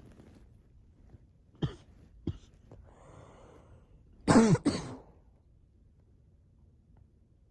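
A person coughing: two short throat sounds, a breath drawn in, then a loud double cough a little past the middle.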